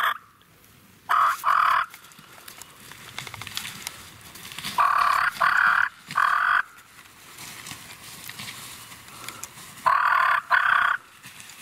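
Turkey yelping in short loud series: two notes about a second in, three more around the middle, and three near the end.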